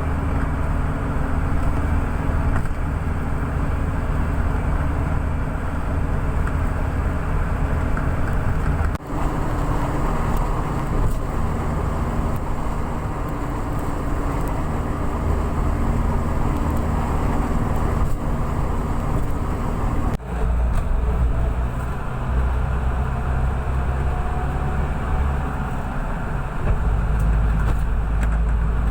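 Steady low rumble of a moving vehicle's engine and tyres at highway speed, heard from inside, with two brief breaks about 9 and 20 seconds in.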